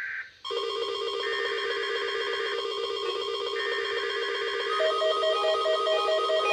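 Several NOAA Weather Radio receivers sounding alert tones at once: a dense, trilling stack of electronic tones, with warbling data-like bursts coming and going. A steady beeping alarm joins about five seconds in.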